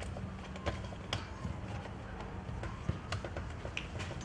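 Field-side ambience of a football match: a steady low hum under scattered short clicks and knocks.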